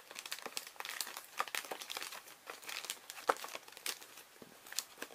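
Clear plastic packaging bag crinkling in irregular sharp crackles as hands grip and shift the bagged meter in its box.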